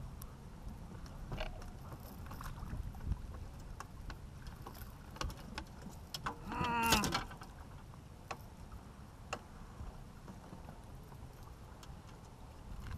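Steady low wind-and-water rumble with scattered light knocks of the landing net and gear against the boat. About halfway through comes one short, wavering cry from the man working the net.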